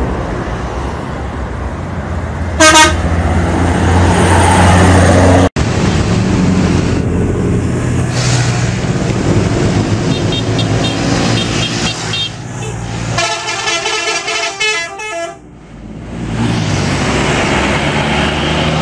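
Indonesian bus 'telolet' multi-tone musical horns sounding over the low hum of running bus engines: one short loud blast about three seconds in, then a quick warbling run of horn notes in the middle of the stretch.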